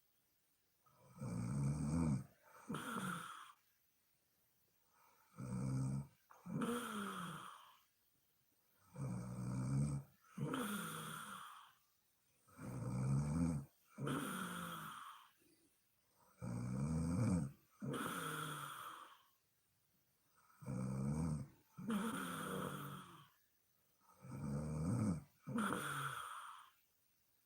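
A sleeping woman snoring in a slow, steady rhythm, about one breath every four seconds. Each breath is a low, rattling snore followed by a shorter, breathier sound, with quiet between breaths.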